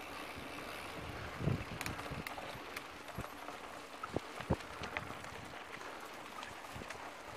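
Mountain bike rolling down a rough dirt and gravel track: steady tyre noise with scattered clicks and knocks from the bike jolting over the ground, the sharpest two close together about four seconds in.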